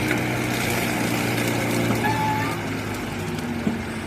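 Excavator engine running steadily with its hydraulic flail mower attachment driven, under a continuous mechanical haze; the engine note shifts to a different pitch about halfway through.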